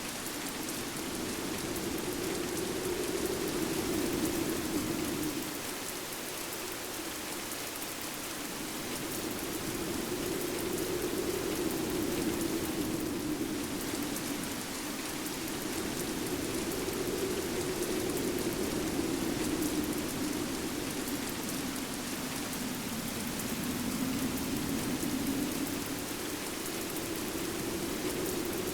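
Steady rain hissing, with a howling wind over it whose low moan slowly rises and falls in pitch in swells every few seconds.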